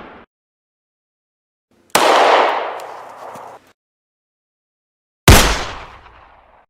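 Two single gunshots about three seconds apart, each a sharp crack followed by a long fading tail; the tail of an earlier shot dies away at the start.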